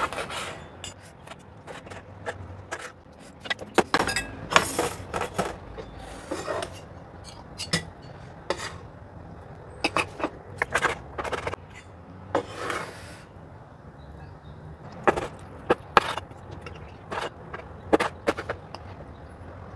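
Meat cleaver chopping through pan-roasted boneless chicken thighs on a wooden cutting board: irregular sharp knocks of the blade striking the board, with a few longer scraping strokes.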